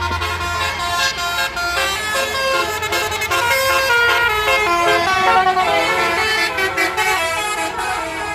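A tour bus's basuri telolet horn, a multi-tone musical horn, playing a quick melody whose notes step up and down several times a second. A low engine hum fades out about a second in.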